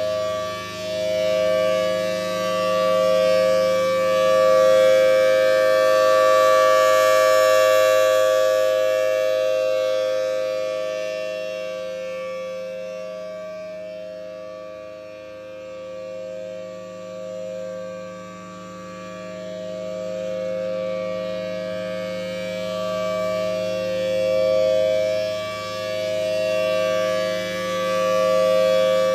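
Federal Signal Thunderbolt 1000T tornado siren sounding a steady two-note chord at a fixed pitch during a test. The sound swells and fades slowly as the rotating siren head turns toward and away: loudest about a quarter of the way in, faintest around the middle, loud again near the end.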